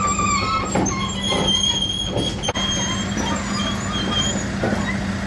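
Flatbed recovery truck running with a steady engine hum, with thin high-pitched metallic squeals coming and going over it and a few knocks.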